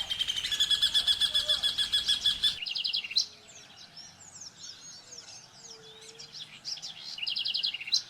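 Rufous hornero singing its loud, fast, evenly repeated run of notes for about two and a half seconds, with another short run near the end. Softer, scattered chirps come in between.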